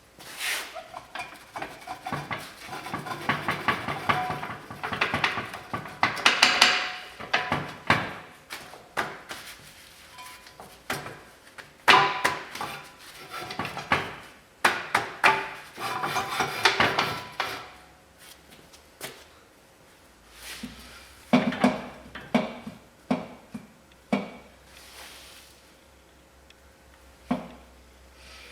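Hand tools clanking, tapping and scraping on the metal of a truck axle's drum-brake hub, in irregular clusters of sharp knocks, busier in the first half and sparser later.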